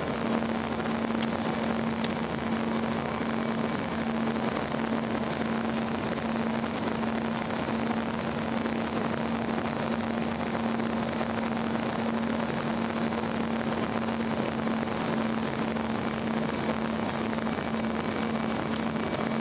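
Steady cabin noise inside an Embraer EMB-145 regional jet on final approach: an even rush of airflow with a steady drone from its rear-mounted turbofans held at one pitch.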